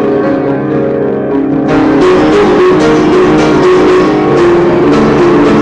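Upright piano played with both hands, held chords and melody notes ringing together. It is a little softer at first and gets louder and brighter about a second and a half in, with many notes struck in quick succession.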